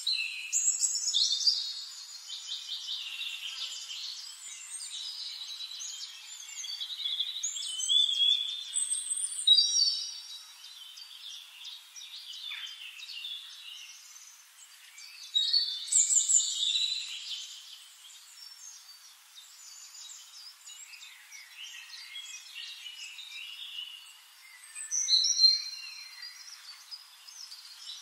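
Several birds chirping and singing in overlapping high phrases and trills, with louder bursts about a second in, around eight to ten seconds, near sixteen seconds and again near twenty-five seconds.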